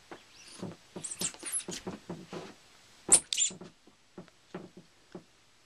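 Irregular short rustles, taps and high squeaks, about a dozen, from someone handling and moving among clutter on the floor. The loudest comes a little after three seconds in, and they stop near the end.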